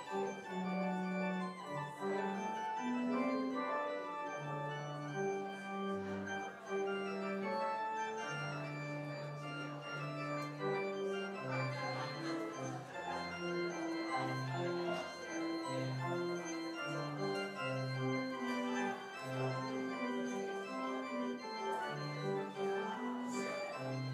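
Church organ playing the postlude that closes the service: sustained chords over a bass line that steps from note to note.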